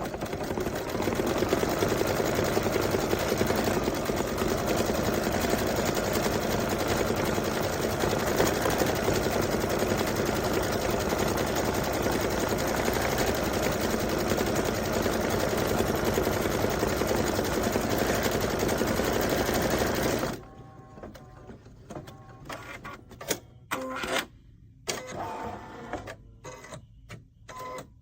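Embroidery machine stitching steadily at speed, then stopping abruptly about twenty seconds in, followed by scattered lighter clicks and knocks.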